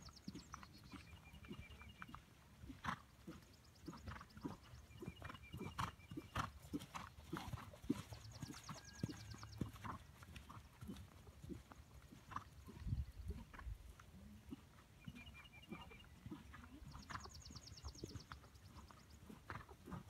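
Hoofbeats of a ridden horse moving around a sand arena: an uneven run of soft thuds. A faint rapid high trill comes and goes every few seconds.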